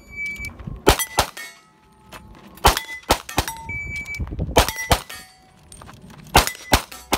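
Pistol shots from a custom SIG Sauer 1911 in .38 Super, fired in quick pairs about a third of a second apart, four pairs in all, with steel plate targets ringing after the hits. A shot-timer beep sounds right at the start and again a little before the third pair.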